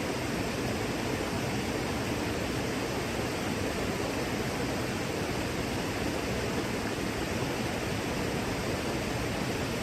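Steady, even roar of a large waterfall, a dense rushing noise weighted toward the low-middle range.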